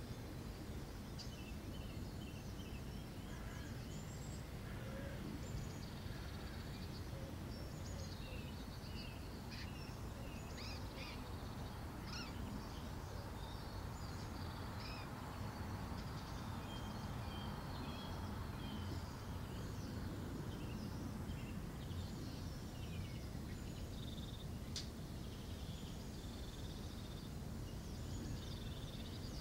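Outdoor ambience: a steady low rumble with many small birds chirping and twittering throughout.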